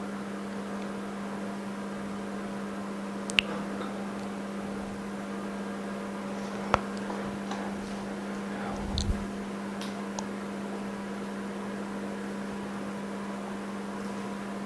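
Steady electrical hum of running workbench machinery, with a few sharp clicks and a soft thump as a phone screen and its metal alignment mould are handled.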